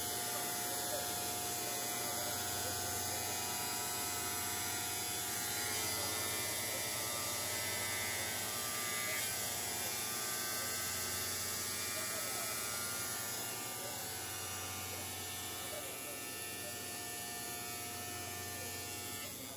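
Hoyun automatic CNC three-blade ceramic tile cutting machine running: a steady electric hum and buzz of its motors and cutting blades as tiles pass through under water spray.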